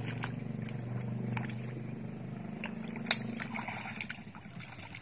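A motor running with a low, steady drone that fades away a little after halfway, with a few light knocks over it, the sharpest about three seconds in.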